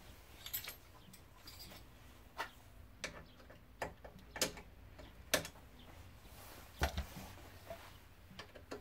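Metal hand tool clicking and tapping against the inside of a stripped car door and its window regulator: irregular sharp clicks, roughly one a second.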